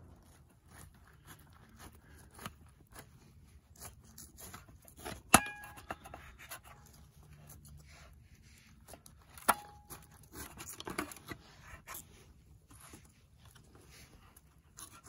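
Cutlery scraping and tapping on a dish as pie is served and eaten, with two sharp ringing clinks, one about five seconds in and one about nine and a half seconds in.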